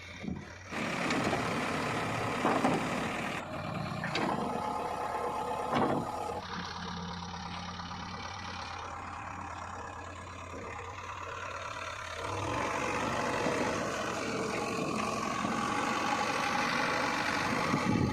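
Diesel engines of a backhoe loader and tractors running at work, with a few sharp knocks in the first six seconds. The sound changes abruptly several times between stretches.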